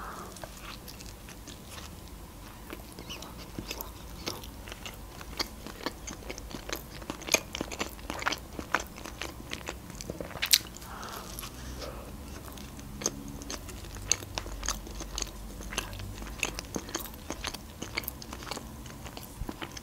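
Close-up mouth sounds of a person biting and chewing an open sandwich of dark bread with cream cheese and raw trout: many small sharp clicks and smacks, a few louder than the rest.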